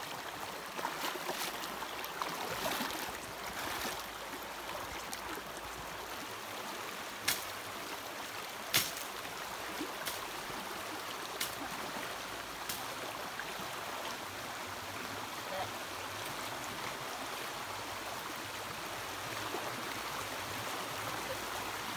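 Shallow stream running steadily as a person wades through it. A few sharp clicks stand out partway through.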